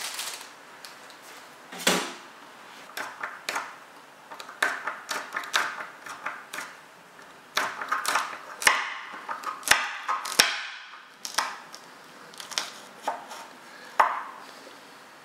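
Kitchen knife chopping a red chilli directly on a hard worktop: irregular sharp knocks of the blade striking the counter, some close together, others a second or more apart.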